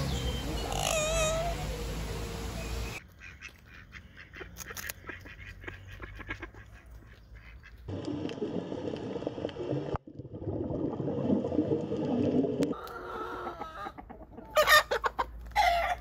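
A run of bird calls. Parrots give wavering calls over the first few seconds, followed by a quieter, mixed stretch. Loud chicken calls come near the end.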